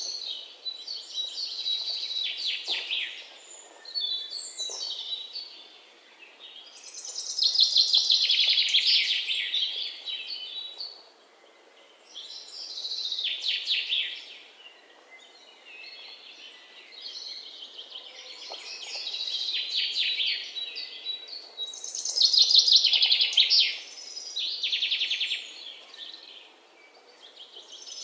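A songbird singing: about eight phrases of fast, trilled, high notes, each a second or three long and separated by short pauses, the loudest about eight seconds in and again about twenty-two seconds in.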